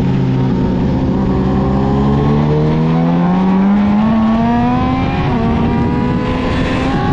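Yamaha YZF-R6's inline-four engine through an Akrapovic exhaust, accelerating hard: the revs climb steadily for about five seconds, dip at an upshift, climb again and dip at a second upshift near the end, with wind rushing past.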